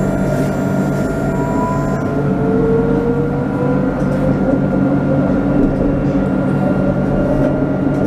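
Alstom Citadis 302 low-floor tram running along its track, heard from the front cab: a steady rolling and motor hum with a whine that rises slowly in pitch around the middle.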